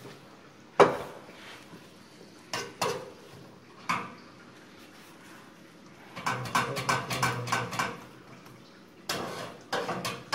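Metal pans, plates and utensils clattering as the künefe is turned over to cook its other side: a sharp clank about a second in, a few scattered knocks, then a quick run of rattling in the middle and more knocks near the end.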